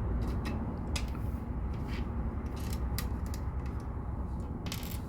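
LEGO plastic pieces clicking as they are handled and pressed together: a string of irregular sharp clicks, with a short rustle of pieces near the end, over a steady low hum.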